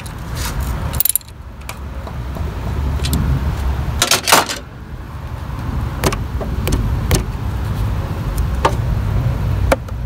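Socket wrench clicking and clinking on the timing-belt tensioner pulley bolt as it is tightened to 31 foot-pounds. The clicks are irregular, with the loudest pair about four seconds in, over a low rumble.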